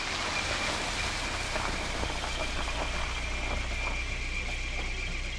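A car running on a wet, slushy street: a steady low engine hum under an even hiss.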